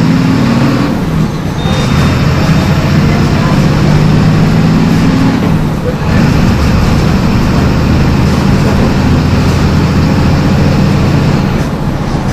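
MWM 6.12 TCAE six-cylinder turbo diesel engine of a Volksbus 17.210 EOD bus running under way. Its note dips briefly about a second in and again around six seconds in, then carries on at a changed pitch.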